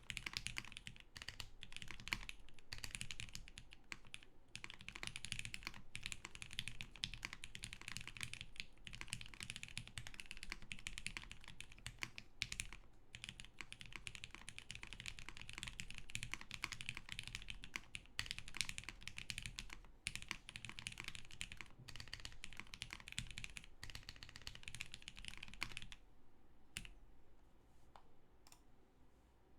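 Fast, continuous typing on a Keycult 1/65 custom 65% mechanical keyboard with vintage Cherry MX Black linear switches, lubed and filmed, on an aluminium plate with GMK keycaps. Near the end the typing stops, leaving a few scattered keystrokes.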